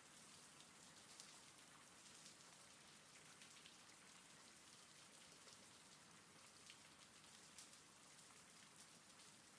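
Faint, steady rain: an even hiss of falling rain with scattered sharper drop ticks.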